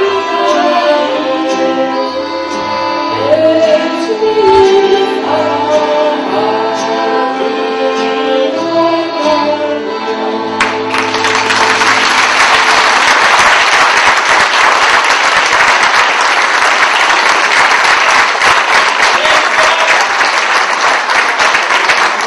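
A woman singing a Slovak folk song with accordion accompaniment; the song ends about ten seconds in and audience applause follows, carrying on to the end.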